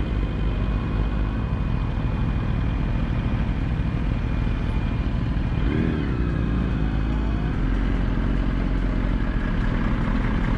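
Sport motorcycle engine running at low, steady road speed with wind and road noise, heard from a camera on the rider's bike. About six seconds in there is a brief sound that rises and falls in pitch.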